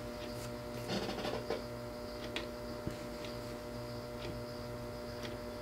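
Quiet, steady electrical hum, with a few faint soft ticks and rustles from hands wrapping thread over deer hair on a bucktail jig held in a fly-tying vise.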